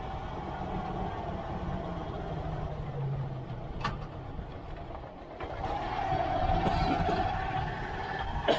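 Motorcycle tricycle engine running on the move, a steady hum with a whine that sags a little, dips about five seconds in, then rises and gets louder. A sharp click a little before halfway and a sharp knock near the end.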